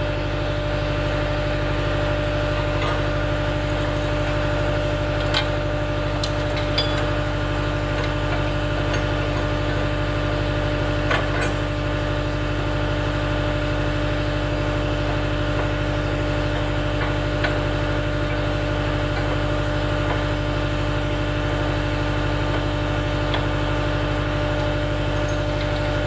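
Cat 279D3 compact track loader's diesel engine idling steadily, with a few faint clicks from hand tools on the backhoe mounting bracket.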